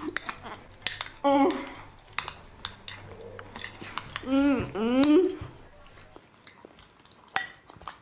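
Metal spoon clicking and scraping against a bowl while porridge is eaten, in quick irregular strokes. A short wavering vocal sound comes about a second in and a longer one around four to five seconds in.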